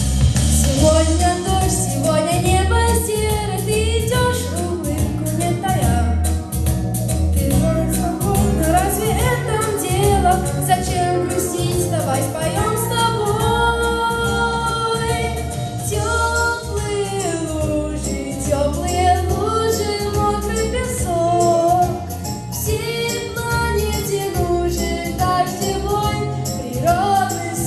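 A boy singing a pop song into a handheld microphone over backing music with a strong, steady bass beat.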